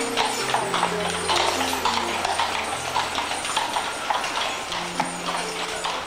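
Horse's hooves clip-clopping on cobblestones as a horse-drawn carriage passes, with music of held low notes playing over it.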